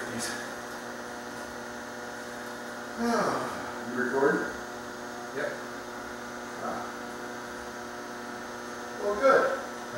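A steady electrical hum, with a few short, louder sounds breaking in about three and four seconds in and again near the end.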